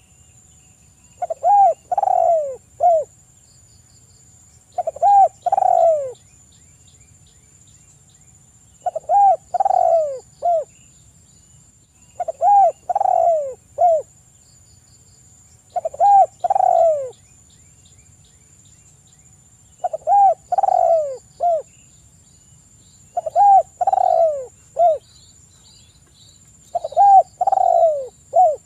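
Spotted dove cooing: eight repeated phrases, about one every three and a half seconds, each of three or four hooting notes, the middle one longest and loudest. A thin steady high whine runs underneath.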